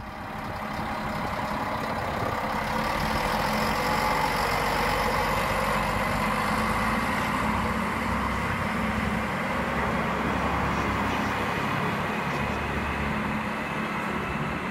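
Class VT 650 'Shuttle' diesel railcar running its diesel engines with a steady drone. It rises over the first couple of seconds and then holds level.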